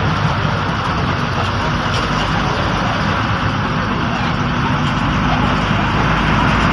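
KSRTC bus running along the road, a steady engine drone mixed with road noise.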